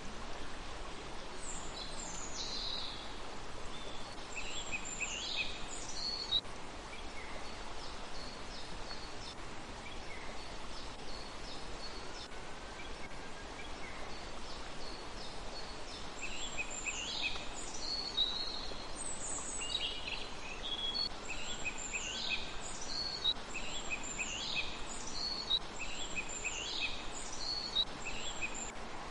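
Small birds calling: short, high, down-sweeping notes in a cluster over the first few seconds, then repeated more densely over the last dozen seconds, above a steady hiss.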